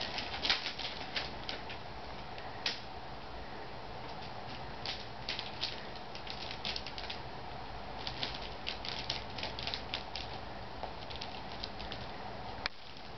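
Shiny gift-wrap and tissue paper crinkling and crackling in short bursts as a cat steps and paws on it, with one sharper click near the end.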